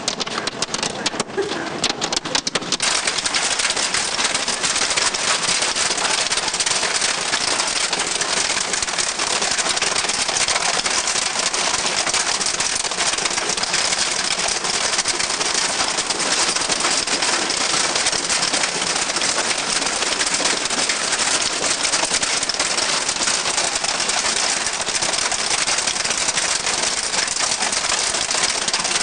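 Hail pelting down during a storm: a dense, steady hiss made of countless small impacts on ground, gravel and the house. In the first few seconds sharper separate clicks of stones striking close by stand out.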